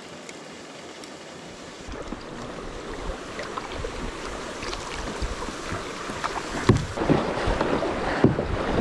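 River water rushing and splashing around a kayak as it moves into faster water, growing louder from about two seconds in, with scattered splashes and knocks against the boat; wind buffets the microphone.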